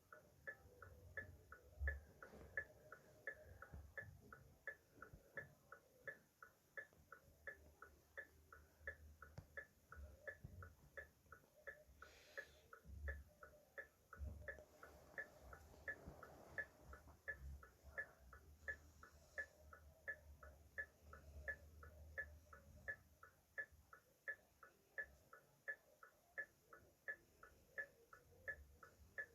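Car hazard-light flasher ticking: faint, short, evenly spaced relay clicks, a few a second, going on without a break.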